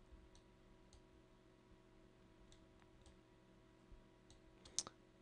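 Near silence with a few faint computer mouse clicks, about one every second, and a sharper click near the end, over a faint steady hum.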